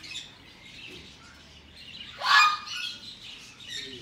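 Baby green-cheeked conure squawking: one loud squawk about two seconds in that rises sharply at its start, with softer calls before and after it.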